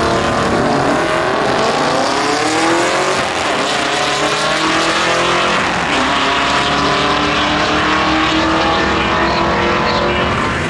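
A 2018 Chevrolet Camaro and a 1970s Lincoln accelerating hard side by side down a drag strip at full throttle. The engine note climbs steadily, drops back at an upshift about three seconds in and again about six seconds in, then climbs once more as the cars pull away.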